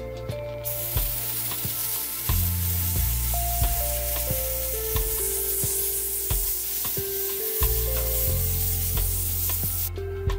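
A small homemade baking-soda sandblaster with a brass nozzle hissing steadily as compressed air and soda blast the surface of a brick. The hiss starts about half a second in and cuts off suddenly near the end. Background music with a steady beat plays under it.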